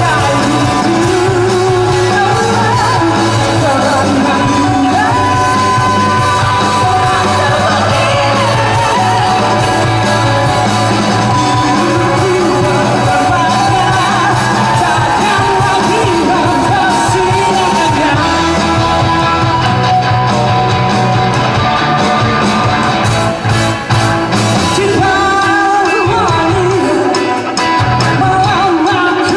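Rock band playing live, with the lead vocalist singing over the band and two short breaks in the music near the end.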